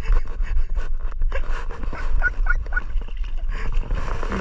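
A few short, high yips or cries from an animal, a little past the middle, over a steady low rumble and scattered clicks.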